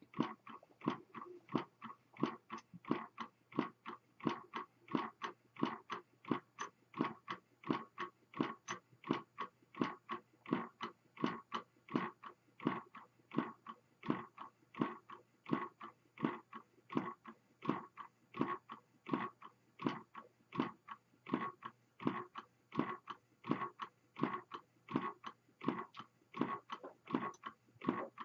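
Horizontal pop-can Stirling engine with a CD flywheel, heated by a spirit lamp, running steadily and clicking in an even rhythm of about two to three clicks a second.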